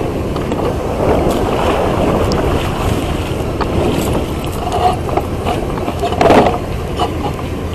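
Strong wind buffeting the microphone over water lapping around a small boat, with a few light knocks and one louder burst about six seconds in.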